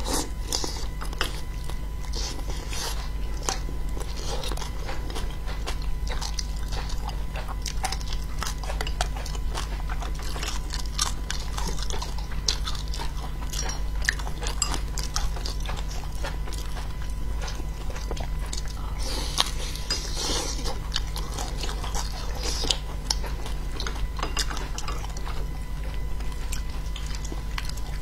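Close-miked chewing of spicy braised fish pieces, with many small wet mouth clicks and smacks throughout, over a steady low hum.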